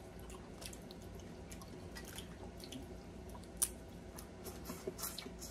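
Faint, scattered wet clicks and smacks of seafood being eaten by hand, with one sharper click about three and a half seconds in.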